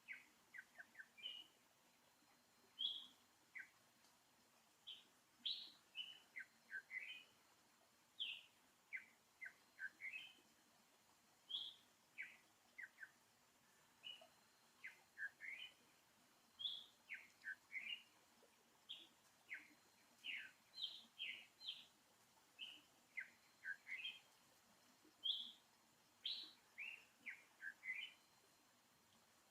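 Small bird chirping over and over: short, high chirps that drop quickly in pitch, coming in little clusters of two to five with brief pauses between.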